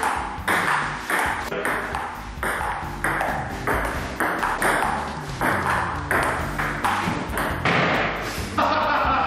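Table tennis rally: the celluloid ball clicks off paddles and the table about twice a second, with a short echo after each click.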